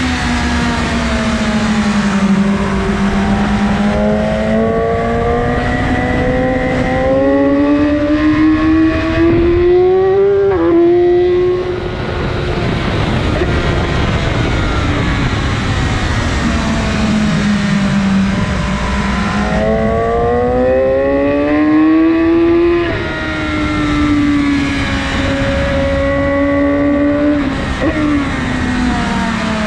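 A 2019 BMW S1000RR inline-four engine with an Akrapovic exhaust, running hard at full throttle. Its pitch climbs steadily for several seconds, drops back sharply about ten seconds in, climbs again, and falls away near the end.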